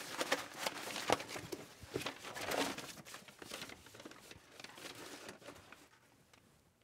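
Papers and cardboard folders rustling and flapping as they are rifled through in a hurry, with a few sharp knocks among them, dying away about six seconds in.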